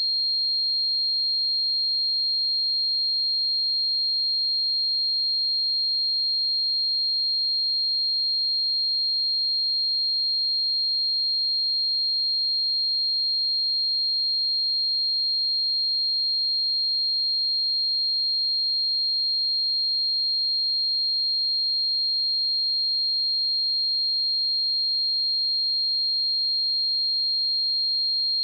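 A pure 4224 Hz sine-wave test tone, a single steady high-pitched tone held at constant level without change.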